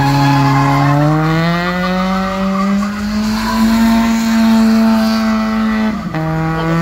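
Drifting car's engine revving hard, its pitch climbing over the first few seconds and held high, dipping briefly about six seconds in before picking up again, with tires squealing as the car slides and smokes its rear tires.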